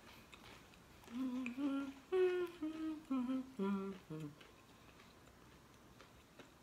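A woman humming a short tune of about seven held notes with her mouth closed, the last note dropping low.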